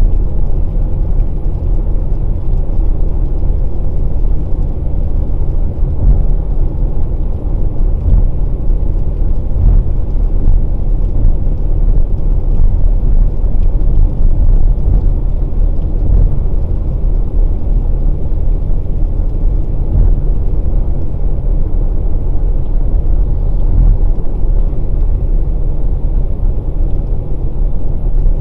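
Steady low rumble of a 2020 Volkswagen Passat Variant 1.6 TDI driving at speed, heard from inside the cabin: road and engine noise.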